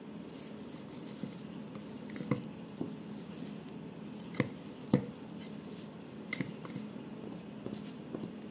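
Fresh basil leaves rustling as gloved hands pack them into a plastic blender bowl, with a few sharp taps on the plastic, the loudest about four and five seconds in, over a faint steady hum.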